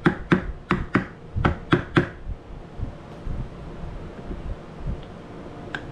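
A marine steering wheel adapter being tapped onto the boat's helm shaft with a hammer: a quick run of about six sharp knocks in the first two seconds, then softer thumps and handling, and one click near the end.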